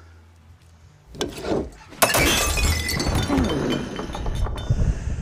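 A sudden loud crash of breaking glass about two seconds in, followed by scattered tinkling of shards and a few sharp knocks near the end.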